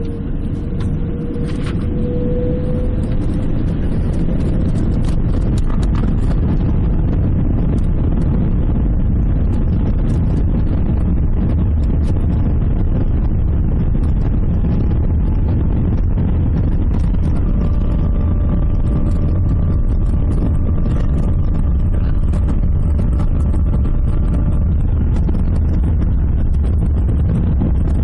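Airbus A380 cabin during the takeoff roll, heard from a window seat: the Rolls-Royce Trent engines spool up with a slightly rising whine and build to a loud, steady deep rumble at takeoff thrust. A thin steady whine sits over the rumble for several seconds past the middle.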